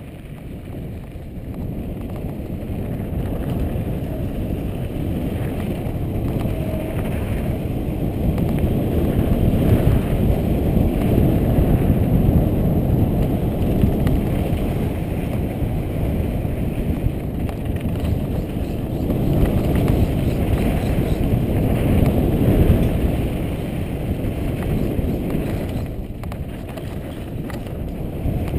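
Wind rushing over a helmet-mounted camera's microphone, mixed with a mountain bike's tyres rolling fast over a dirt trail. It grows louder through the middle and eases off near the end.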